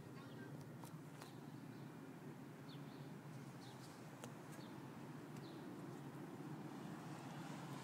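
Faint outdoor ambience: a steady low hum with scattered short bird chirps and a few sharp clicks.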